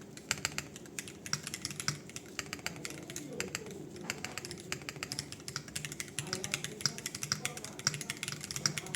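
Continuous fast typing on a foamless hall-effect keyboard: a Rule60 V3 case with UR Ice Ultra magnetic switches and PBT doubleshot keycaps, heard through a phone microphone. The keystrokes come in a dense, uneven stream of sharp clacks.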